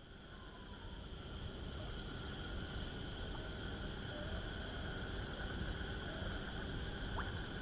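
Nighttime rice-paddy ambience: a steady chorus of insects chirring in even bands, fading in over the first two seconds, with one short rising chirp near the end.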